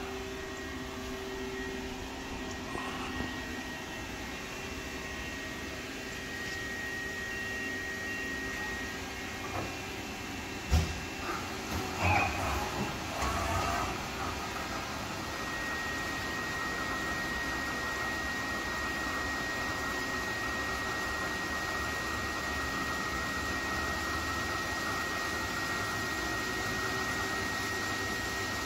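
Okuma LB35 II CNC lathe powered up and running, giving a steady machine hum with a thin high whine that is strongest in the second half. There is a single knock about eleven seconds in and a brief clatter just after it.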